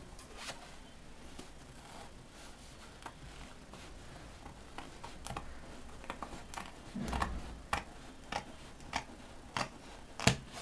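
Handling noises from dressmaking work at a table: irregular light clicks and taps, a soft thump about seven seconds in, and a sharper click near the end.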